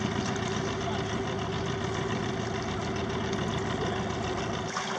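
Outboard motor idling steadily, a low even hum under the wash of wind and water.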